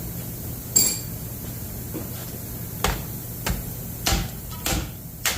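Hammer blows on metal, about six sharp strikes spaced half a second to two seconds apart. The first and loudest rings briefly. The hammer is knocking a part on the big-block engine that has just been torch-heated to orange.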